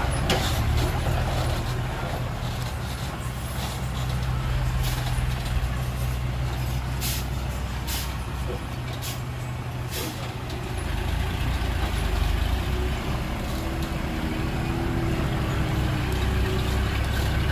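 Heavy diesel engine of earthmoving machinery running steadily. It eases off partway through and picks up again, with several sharp clicks or knocks in between.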